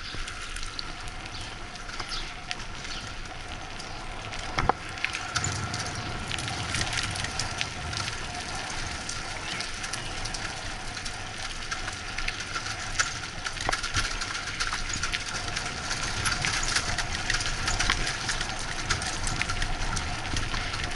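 Bicycle rolling over a brick-paved alley: tyres rumbling on the bricks with a constant clatter of small rattles and clicks, the low rumble growing stronger about five seconds in.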